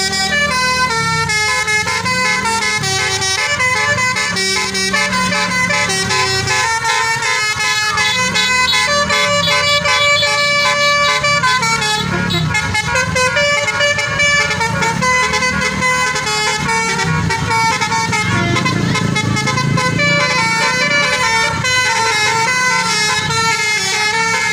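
A bus's 'telolet' Basuri multi-tone air horn playing a continuous melody, note after note, over the low sound of the running engine.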